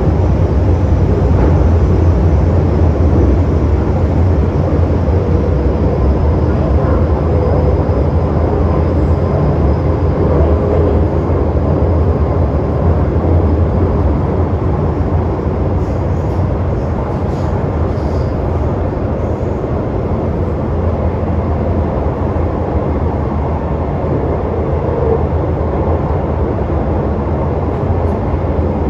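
Cabin running noise of an MTR Metro-Cammell M-Train on the move in a tunnel: a steady, loud low rumble of the car running on the rails.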